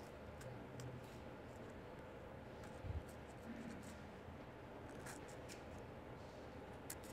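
Faint scratching and light clicks of a small carving knife cutting into watermelon rind, with a low thump about three seconds in.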